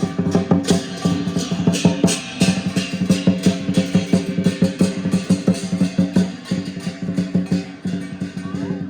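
Lion dance percussion: a big drum beaten in rapid strokes with cymbals clashing over it and a steady low ringing tone underneath.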